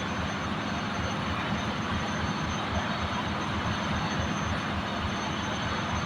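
Steady machinery noise of a ship's engine room: an even rumble and roar with a thin, high steady whine, unchanging throughout.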